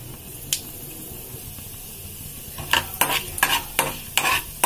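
Urad dal and mustard seeds sizzling in hot oil in an aluminium kadai, with one click about half a second in. From about two and a half seconds in, a metal ladle scrapes and knocks against the pan as the dal is stirred.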